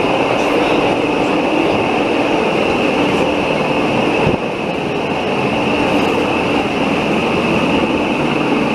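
Pilatus Railway electric rack railcar running on its cogwheel rack track, heard from aboard: a steady running noise with a steady high whine through it.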